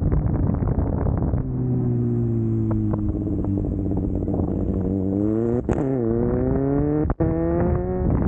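Wind buffeting the microphone, then, about a second and a half in, a superbike engine comes in. Its pitch sinks slowly, then climbs twice, with a short break between the climbs, before it cuts off near the end.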